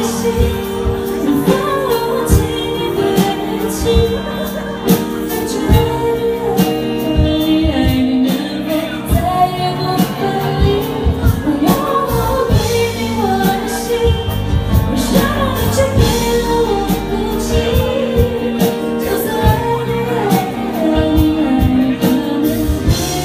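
Live pop band music with a woman singing over sustained keyboard chords, bass and drum hits.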